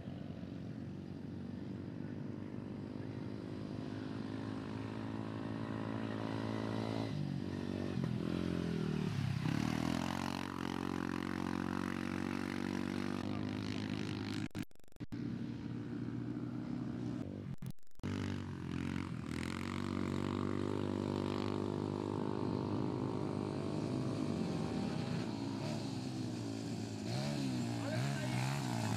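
Sport ATV (quad) engines racing on a dirt track, the pitch rising and falling as the riders throttle on and off through the corners. The sound cuts out twice, very briefly, around the middle.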